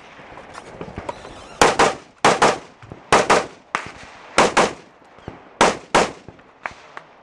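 AR-15-style rifle fired in five quick pairs of shots, each pair a double tap of two shots for one target, with a short echo after each shot.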